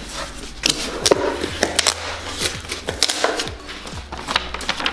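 Cardboard shipping box being opened by hand: packing tape cut through, flaps pulled back and a sheet of paper lifted out and rustled, making a run of irregular crinkles, scrapes and light knocks. Background music plays underneath.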